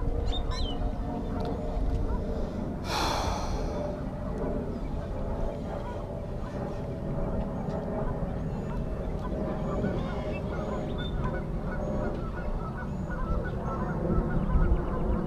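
Waterfowl calling over and over in a continuous chatter of short calls, over a steady low rumble. About three seconds in there is a brief whoosh.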